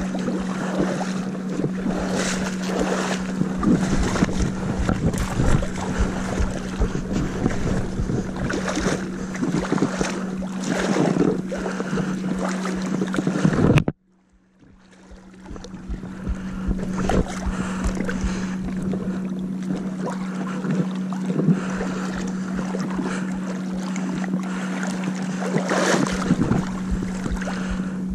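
Boat motor running steadily with a constant low hum, while wind buffets the microphone and water splashes. The sound cuts out suddenly about halfway through and fades back in over a couple of seconds.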